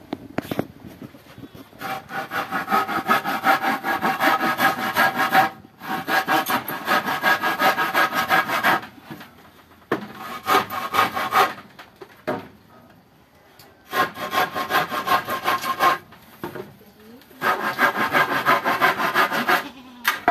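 Hand saw cutting across a weathered wooden plank to length. It makes quick back-and-forth strokes, several a second, in about five bouts with short pauses between them.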